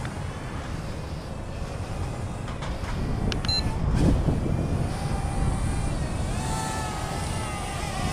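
Small Inguity Wi-Fi FPV toy quadcopter's propellers whining in flight, the pitch wavering, fading in the middle and coming back near the end. Wind rumbles on the microphone throughout and is loudest about four seconds in.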